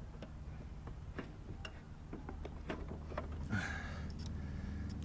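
Light metallic clicks and taps of hands and tools working a lawnmower carburettor's throttle linkage and springs, with a brief scrape about three and a half seconds in.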